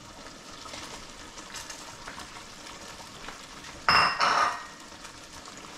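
Lobster and scallions sizzling in a pan as they are stirred, with two ringing metal clangs against the pan about four seconds in.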